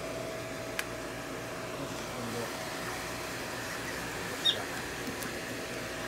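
Hand-held hair dryer blowing steadily with a thin motor whine, drying a prairie dog's fur. A short high squeak sounds about four and a half seconds in.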